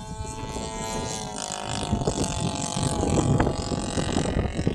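50cc gasoline engine of a large RC plane running with a steady buzzing note, growing steadily louder.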